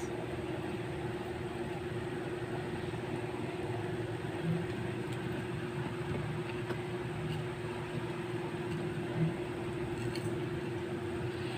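A steady background hum: a constant mid-pitched drone over an even hiss, like a motor running, with a couple of faint soft knocks.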